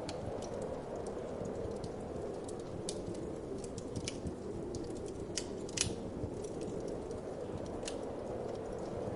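Wood fire crackling, with irregular sharp pops and snaps, the loudest a little before six seconds in, over a steady low whoosh of wind.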